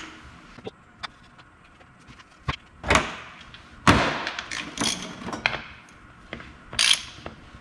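Sharp metallic clicks and clacks of steel bolts and hand tools being handled on a transfer case, as sealer-coated through-bolts are started into the housing, with a short burst of ratcheting near the end.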